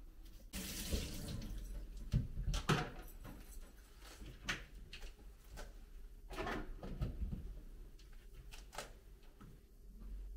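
Water running briefly from a tap, followed by scattered light knocks and clinks of things being handled.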